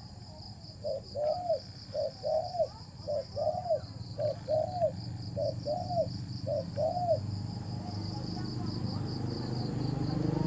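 Spotted dove cooing: a string of paired, rising-and-falling coos for the first seven seconds or so, over a steady high insect trill.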